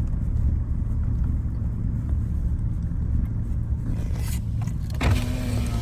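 Car driving, heard from inside the cabin: a steady low rumble of engine and road noise. About five seconds in, a steady higher-pitched hum with overtones suddenly joins it.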